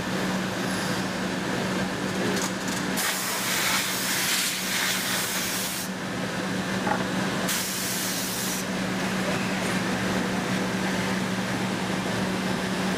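Steady drone of woodworking factory machinery with a constant low hum, broken by two bursts of hissing air: a long one about three seconds in and a shorter one near eight seconds.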